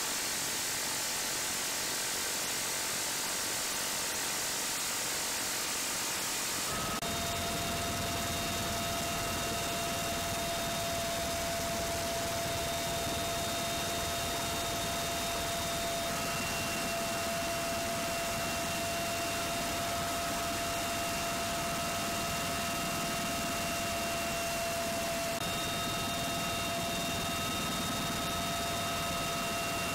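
Helicopter cabin noise through an open door: turbine engine, rotor and rushing wind, steady and unbroken. About seven seconds in, the sound shifts to a deeper rumble with a steady high whine. No gunfire.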